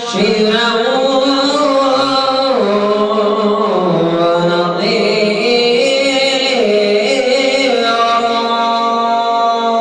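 A man's voice singing a naat into a microphone, holding long drawn-out notes that slide up and down between pitches.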